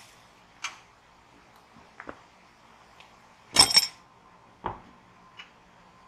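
A handful of sharp metal clanks and clinks from the steel frame and track parts of a portable sawmill being handled, the loudest a ringing double clank a little past halfway.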